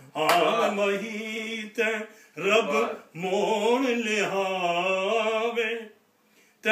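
A man singing or chanting in a melodic, drawn-out style: several phrases of wavering, held notes, the longest lasting almost three seconds, then a short pause near the end.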